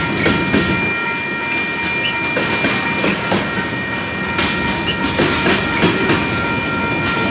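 Freight train cars rolling past: a steady rumble and rattle of steel wheels on rail, with irregular clicks over the rail joints and a thin, steady high-pitched ringing tone over it.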